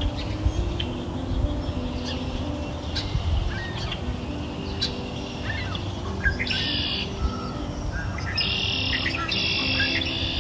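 Songbirds chirping, with quick high chirps and several short trills, the longest about two-thirds of the way through and near the end, over soft sustained background music.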